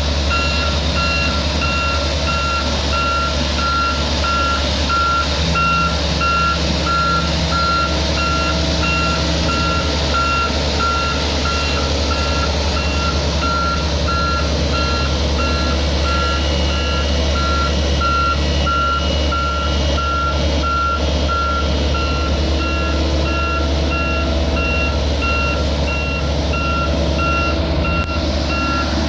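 Reversing alarm of a heavy construction machine beeping in an even, steady rhythm over the steady low drone of a diesel engine; the beeping stops near the end.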